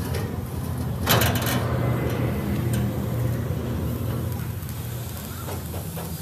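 A steady low engine hum, with a short metallic clank about a second in.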